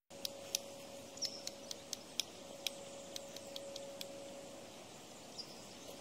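Quiet outdoor ambience: irregular short, sharp high-pitched ticks and a couple of brief chirps, thickest in the first few seconds, over a faint steady hum and background hiss.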